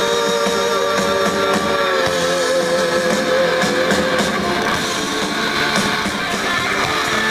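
Guitar-led music with long held, slightly wavering notes.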